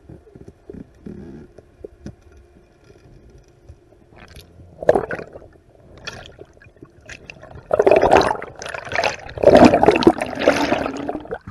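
Underwater sound from a freediver's camera. A faint low rumble of the water for the first few seconds, then a short bubbling burst about five seconds in. Loud rushes of air bubbles fill the last four seconds as the diver rises toward the surface.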